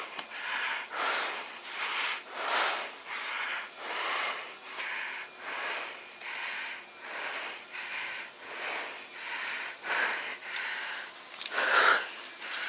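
A man breathing hard close to the microphone, in quick even breaths about one and a half a second, winded after hauling a heavy beaver out of the water. One breath near the end is louder.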